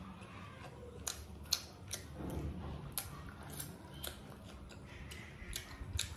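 Close-miked eating sounds: chewing with irregular sharp, wet mouth clicks while rice and chicken are eaten by hand.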